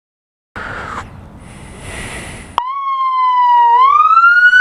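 A rushing noise from about half a second in, then about two and a half seconds in a police siren starts abruptly: one loud wailing tone that dips slightly and then rises in pitch.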